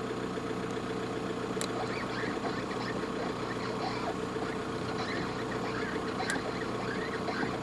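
VW Golf Mk4 engine idling steadily, with faint scattered creaks and two sharp clicks, about a second and a half in and again about six seconds in. The owner asks whether the noise comes from the steering rack.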